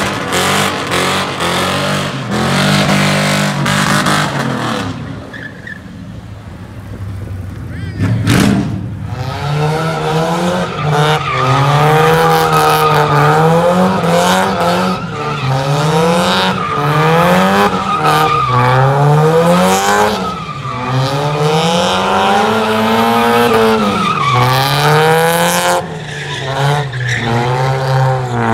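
Car engine revving up and down over and over with tyres squealing as the car spins donuts. A single sharp bang comes about eight seconds in.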